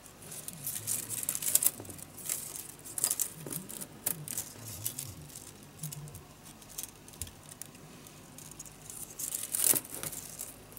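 Thin bamboo strips (about 3 mm wide and 0.3 mm thick) clicking, rustling and scraping against one another as they are slid and tucked into a woven bamboo base by hand. Irregular small clicks throughout, with a louder click about a second before the end.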